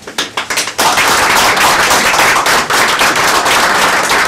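A group of people applauding: a few scattered claps, then full, steady applause from about a second in.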